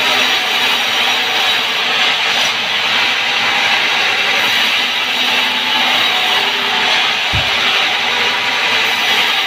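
Sawmill band saw cutting lengthwise through a log: a loud, steady sawing noise of the blade in the wood. A short low thump about seven seconds in.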